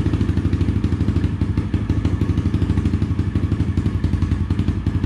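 Yamaha TT-R110 fitted with a 128 cc big-bore kit, its single-cylinder four-stroke engine idling steadily with an even, rapid putter.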